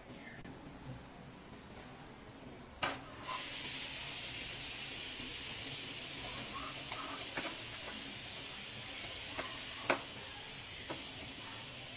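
A metal spatula stirs and scrapes a grated-coconut mixture in a nonstick pan over a gas burner. A steady hissing sizzle starts about three seconds in, and the spatula clicks sharply against the pan a few times.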